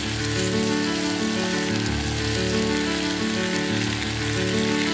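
Food sizzling in a small camp frying pan on a gas burner: a steady, even hiss, under background music of held notes.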